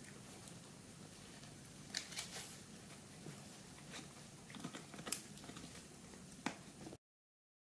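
Italian greyhound gnawing a dried pig ear: a few scattered sharp crunches and clicks over faint room tone. The sound cuts off suddenly near the end.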